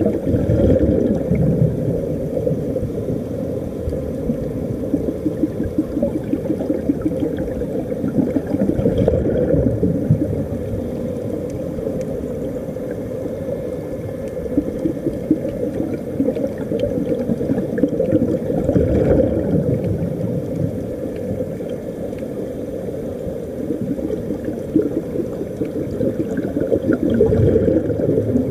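Muffled underwater bubbling and gurgling from air escaping a diving helmet's air supply, steady with swells every several seconds.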